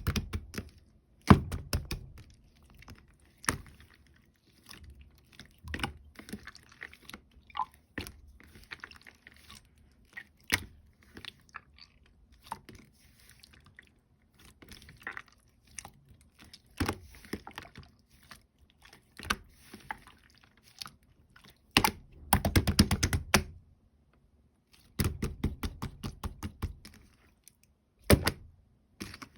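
Clear yellowish slime squished and pressed by hand, giving wet sticky clicks and pops, with denser crackling runs about two-thirds of the way through.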